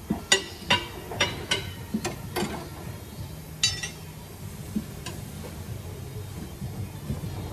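Metal hand tools clinking and tapping against metal: a run of sharp clinks about half a second apart over the first two and a half seconds, one more near four seconds in, over a steady low hum.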